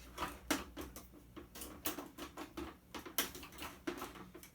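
Irregular clicks and taps of hard plastic and metal parts of a CD changer being pried at and handled, a few a second.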